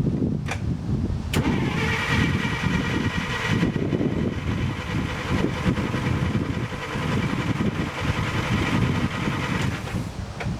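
1947 DeSoto's flathead straight-six being turned over on the starter for about eight seconds, a steady cranking that begins about a second and a half in and stops just before the end. The engine is cranked to make the fuel pump fill the carburetor after a no-fuel no-start.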